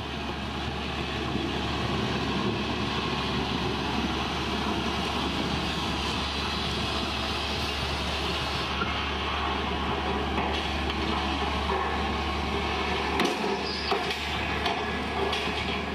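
Atlas road-rail wheeled excavator's diesel engine running steadily as the machine travels along narrow-gauge track on its tyres and rail guide wheels, with a flat wagon coupled on. A few sharp knocks come near the end.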